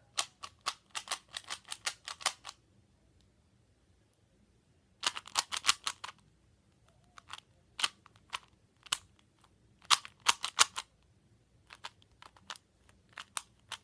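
Plastic Rubik's cube being turned by hand, its layers clicking in quick runs of sharp clicks with short pauses between, then scattered single clicks.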